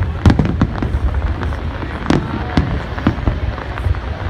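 Aerial firework shells bursting: a run of sharp bangs and crackles over a steady low rumble, loudest about a third of a second in and again about two seconds in.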